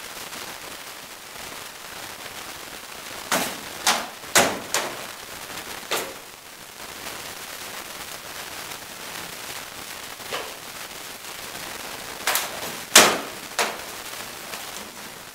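Rattan sword blows striking shields and armour in armoured combat: a quick flurry of about five hits a few seconds in, a single hit around ten seconds, and three more near the end, the middle one of those the loudest.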